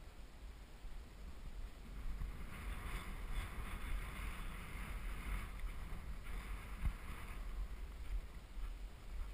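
Wind rushing and buffeting over the microphone of a camera worn by a horse rider on the move: a low rumble throughout, with a hiss that swells through the middle, and a single sharp thump about seven seconds in.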